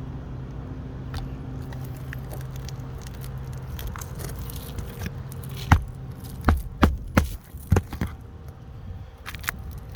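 A steady low hum, then a run of about six sharp knocks a little past the middle.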